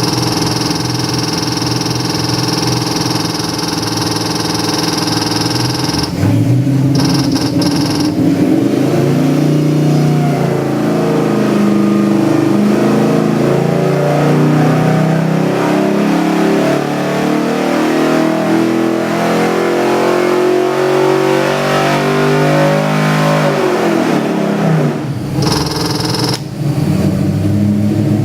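Ford 347 stroker small-block V8 with MSD Atomic EFI running: it idles steadily, then is revved up and held at higher rpm with the pitch climbing and wavering for roughly fifteen seconds, then falls back to idle near the end.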